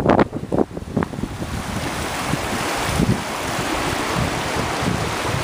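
Wind buffeting the microphone in uneven gusts for about the first second, then the steady rush of the French Broad River running over shallow rapids.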